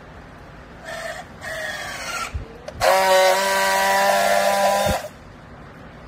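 Battery-powered handheld strapping tool on a plastic bale strap: two short motor whirs as it tensions the strap, then a loud, steady buzz for about two seconds as it friction-welds the strap, cutting off sharply.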